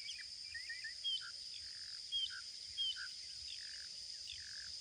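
Birds chirping in short calls roughly once a second over a steady, high-pitched drone of insects.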